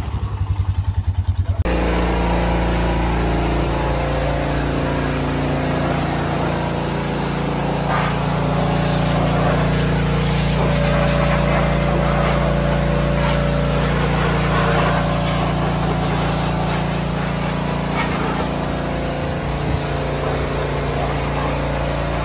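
Pressure washer running steadily, with a constant mechanical hum under the hiss of the high-pressure water jet spraying onto an ATV's tyres and body. It is preceded in the first second or two by a fast-pulsing engine sound.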